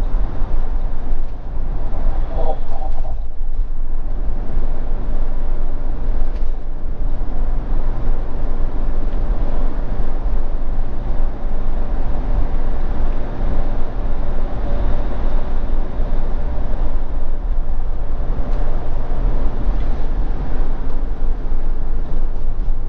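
Steady engine and road noise inside a motorhome's cab while driving at motorway speed, with a deep, even rumble.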